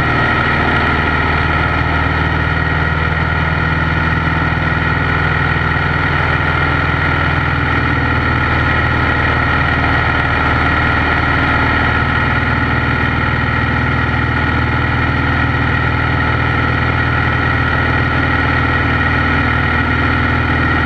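Piper PA-12 Super Cruiser's engine and propeller running steadily in cruising flight, heard inside the cabin.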